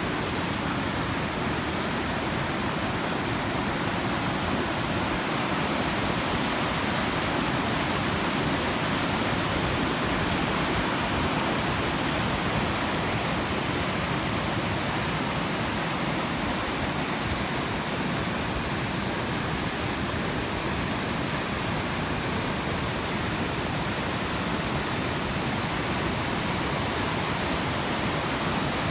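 Fast-flowing river rushing over rocks in whitewater rapids, a steady, even noise.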